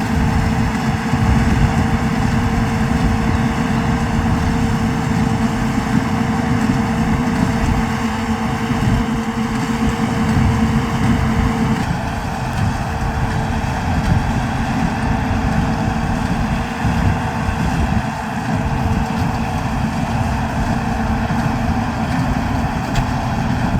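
New Holland TD110D tractor's diesel engine running steadily under load. A thin steady whine in the mix drops out about halfway through.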